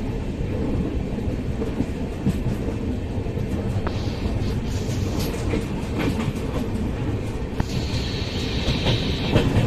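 Indian Railways passenger train running at speed, heard at the carriage doorway: a steady rumble of wheels on track with scattered clicks from the rails. A higher steady ringing joins about eight seconds in, as the train runs onto a steel girder bridge.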